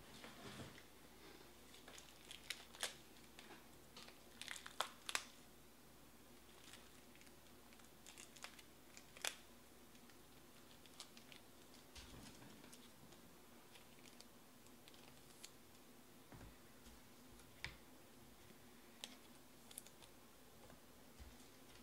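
Trading cards being handled and sorted: faint rustles and scattered soft clicks of card stock, busiest in the first few seconds, with a few sharper taps later.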